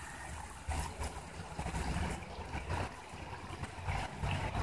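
Water spilling over the stepped stone basins of a fountain, a steady wash, with wind buffeting the microphone in a low rumble that swells about a second in and again near the end.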